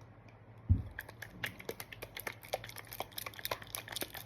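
Capped container of slime mixture being shaken by hand: a thump about a second in, then quick rattling and clicking as it is shaken.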